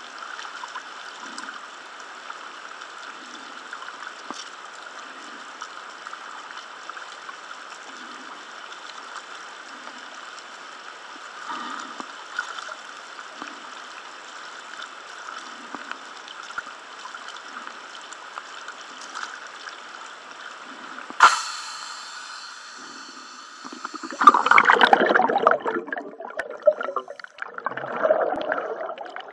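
Lake water sloshing and lapping around a scuba diver at the surface, with a sharp knock about three quarters of the way through. Then the sound turns muffled underwater and the diver's exhaled regulator bubbles rumble in two loud bursts near the end.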